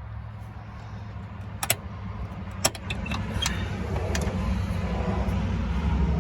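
A few sharp clicks and light rattles as the tail light bulb sockets are twisted and pulled out of the housing, over a steady low vehicle rumble that grows louder.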